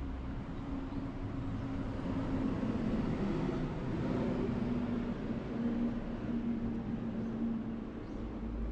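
Street traffic: a motor vehicle passing with a low engine hum over road noise, swelling in the middle and easing off near the end.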